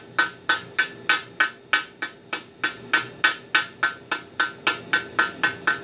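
Chipping hammer knocking slag off a 7018 stick weld on a steel brake rotor: even, sharp metallic strikes, about three a second, each with a short ring.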